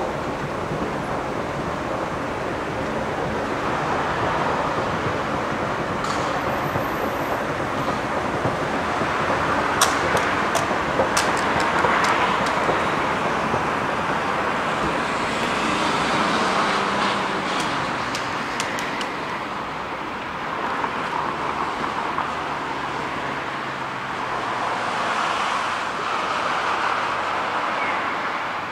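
Road traffic from a city street: a steady wash of car noise that swells several times as vehicles pass, with a few sharp clicks about ten seconds in.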